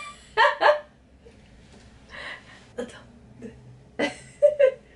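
A person's short wordless vocal sounds: a few quick voiced bursts at the start and again about four seconds in, with a breath and a couple of light taps in between.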